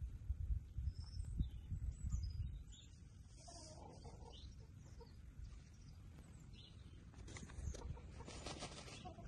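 Chickens dust bathing in loose dirt: a few soft clucks, low bumping in the first couple of seconds, and a burst of rustling in the dirt about eight seconds in.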